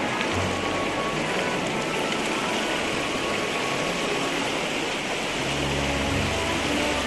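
Shallow mountain stream rushing over rocks and boulders, a steady rushing hiss. Faint music sits underneath, and its low bass notes come in strongly about five seconds in.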